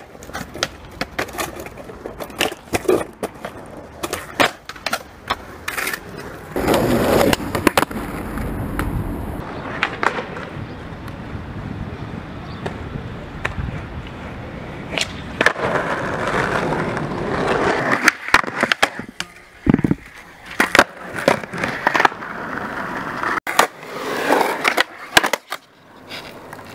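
Skateboard tricks on concrete: wheels rolling, with many sharp clacks of tails popping and boards landing, and a stretch of the board scraping along a concrete ledge.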